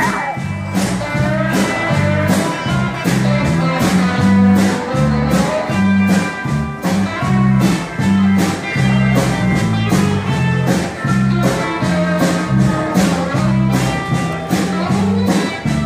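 Live band with guitars and drums playing a dance number, with a steady beat and a strong bass line.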